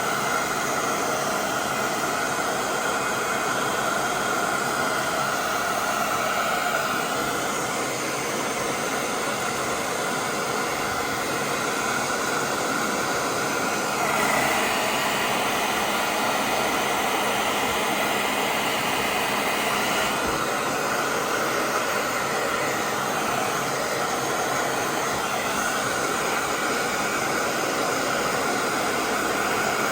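Steady rushing noise without a clear pitch, like a fan or blower. A higher hiss joins it for about six seconds around the middle.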